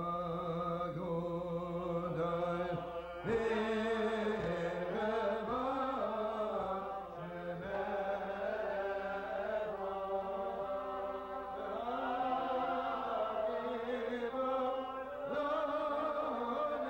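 A man singing a slow, chant-like melody to his own acoustic guitar, holding long notes that bend up and down.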